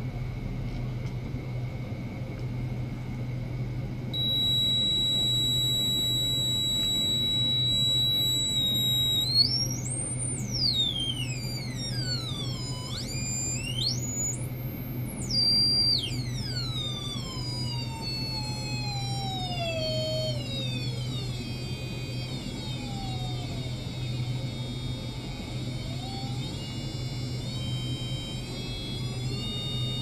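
Electronic tones from an ultrasonic probe on a glass, driven by a function generator: about four seconds in a steady high tone starts, then from about nine seconds several tones at once glide up and down in pitch as the drive frequency is swept. A steady low hum runs underneath.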